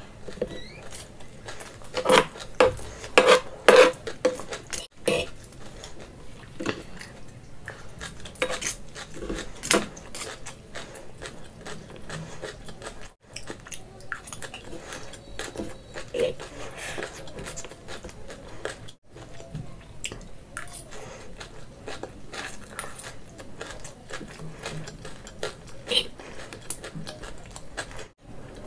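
Cutlery clinking and scraping against a dish of noodles during close-miked eating, with chewing sounds between. There are many short clicks, with the loudest run of clinks about two to four seconds in.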